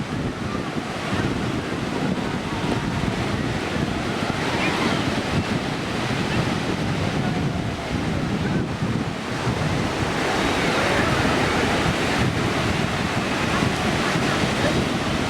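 Ocean surf washing onto a beach, a continuous rushing that swells a little about ten seconds in, with wind buffeting the microphone.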